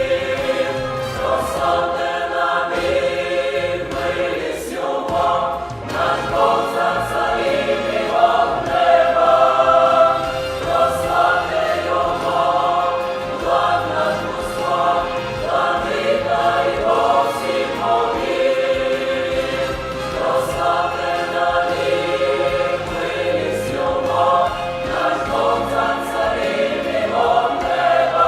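Youth choir singing a hymn in Ukrainian, many voices together in a continuous, steady-level passage.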